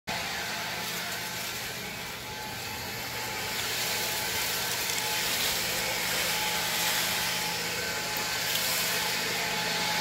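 Leaf blower running steadily: a constant motor hum under a loud rush of air.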